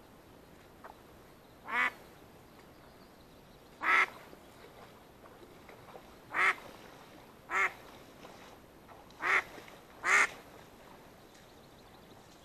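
A live decoy duck on the water quacking six times, each quack short and separate, at uneven gaps of one to two seconds. These are the calls a decoy hen gives that draw wild drakes in to the hunter.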